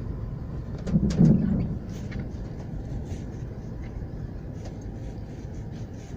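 Road noise and rumble inside a Toyota FJ Cruiser's closed cabin as it drives a dirt road. There is a louder low bump about a second in.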